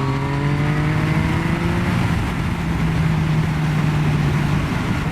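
Yamaha Tracer motorcycle engine through a Scorpion exhaust, pulling under acceleration with its pitch rising over the first two seconds, then running steady, with wind rush over the microphone.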